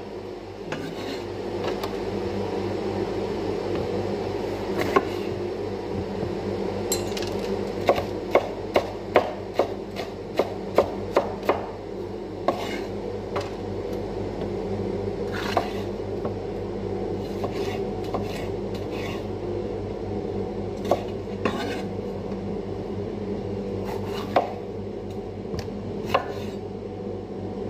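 Kitchen knife slicing bell peppers on a wooden cutting board: scattered knocks of the blade on the board, with a quicker run of strokes about eight to eleven seconds in. A steady low hum runs underneath.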